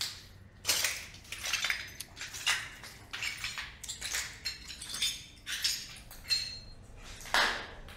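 Footsteps crunching over a debris-strewn floor, a gritty crunch or scrape every half second or so.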